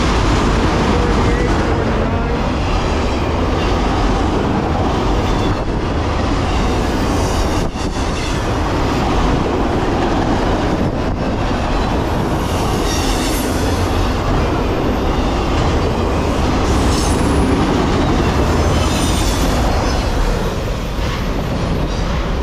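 Empty autorack freight cars passing close at about 49 mph: a steady loud rumble of steel wheels on rail, with intermittent high wheel squeals. Near the end the last car moves away and the noise eases.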